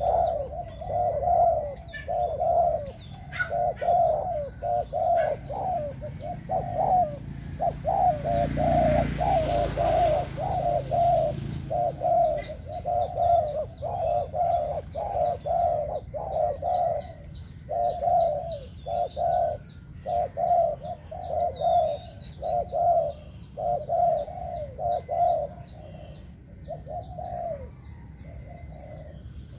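Spotted dove cooing over and over, phrase after phrase with only short breaks. Small birds chirp high above it through the second half, and a short rush of wind-like noise comes in about a third of the way through.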